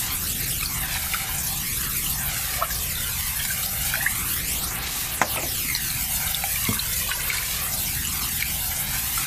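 Steady hiss of noise with a slow swirling sweep, and a few scattered drip-like ticks.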